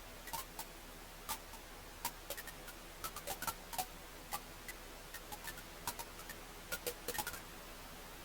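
Wood fire crackling: irregular sharp snaps and pops, several a second at times, over a soft steady hiss.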